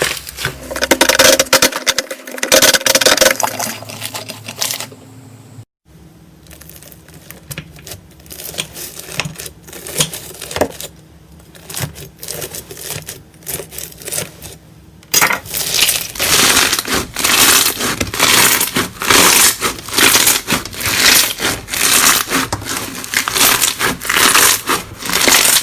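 Slime being squished and pressed by hand, giving dense crackling, popping clicks. The sound cuts abruptly about six seconds in to a quieter stretch, then loud crackling resumes in rhythmic squeezes from about fifteen seconds in.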